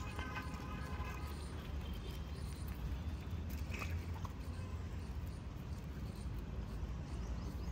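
Steady low outdoor rumble with a faint hiss, and a few soft clicks and rustles around the middle as small toiletry items are handled and packed into a bag.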